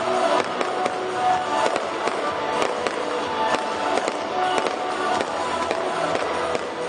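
Firework aerial shells bursting in the sky, a string of sharp cracks and pops, with music playing throughout.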